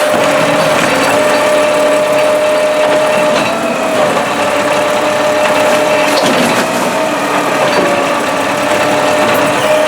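New Way Rotopac garbage truck running, with a steady high whine over the mechanical noise of the truck.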